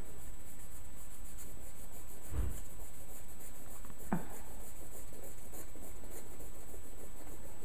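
Pencil shading on drawing paper: repeated back-and-forth strokes scratching softly, with a dull bump about two and a half seconds in.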